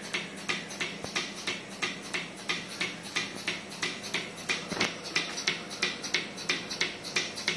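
Portable bucket milking machine running on a cow: the pulsator clicks and hisses in a fast, even rhythm over a steady hum from the vacuum pump.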